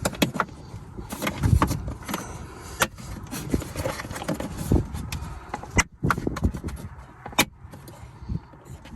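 Plastic clicks, knocks and handling thumps as the fridge's fan unit is pushed and snapped into place in the truck's center console.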